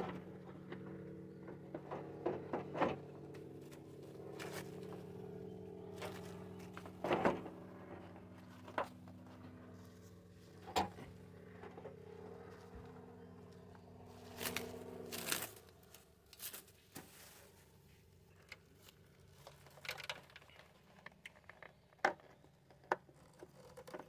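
A plastic-wrapped car headlight assembly being handled and pushed into place in a car's front end: scattered clicks, knocks and crinkles of plastic wrap. A steady low hum from some engine or motor runs underneath and cuts off abruptly a little past halfway.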